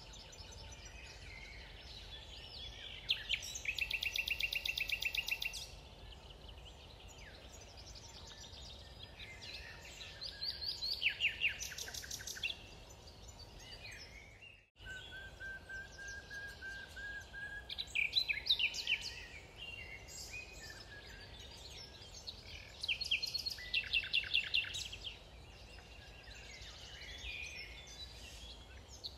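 Several songbirds singing, in repeated fast trills and short phrases of high notes, over a faint steady background hiss. The sound cuts out for an instant about halfway through.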